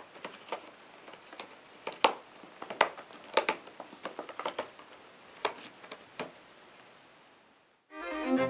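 Irregular sharp clicks and scratchy scrapes, one to several a second, stopping about six seconds in; string music begins near the end.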